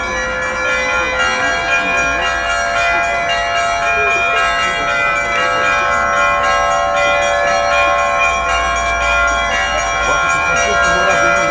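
Orthodox church bells on a portable belfry ringing a trezvon: the small bells are struck in a quick, continuous pattern over the sustained ringing of the larger bells.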